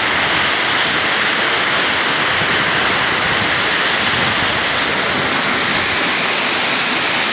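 Waterfall rushing loudly and steadily: heavy, fast-flowing water falling and splashing, a dense even roar of water.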